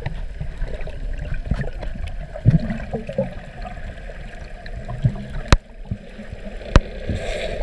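Water heard underwater through a camera: a low, muffled rumble with gurgling, and two sharp clicks in the second half.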